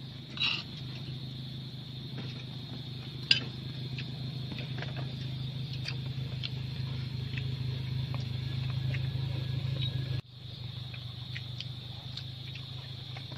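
A steady low hum runs under a constant high-pitched insect drone, with scattered small clicks and taps from hands handling food on banana leaves. The hum cuts off suddenly about ten seconds in.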